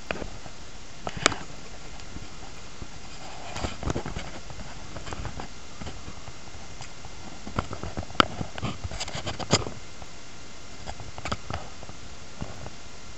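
Handling noise around a glass terrarium: scattered light clicks, taps and rustles over a steady hiss. The sharpest clicks come about a second in and again around eight to ten seconds in.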